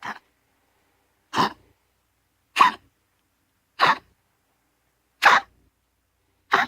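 Pomeranian dog coughing: six short, sharp coughs in a steady run, about one every second and a quarter. It is a persistent cough whose cause vets have not found; they have ruled out heart disease, pneumonia and a collapsed trachea.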